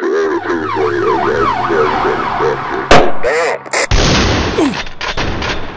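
Police siren yelping, its pitch sweeping up and down about three times a second, then a single sharp shot-like crack about three seconds in, followed by a loud burst of noise that slowly fades.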